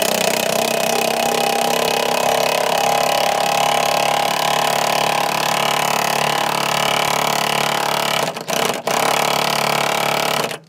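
A power impact wrench runs almost continuously, tightening the top mounting nut of a new semi-truck rear shock absorber while the shock is held so it doesn't spin. There are two brief breaks near the end, and then it stops abruptly.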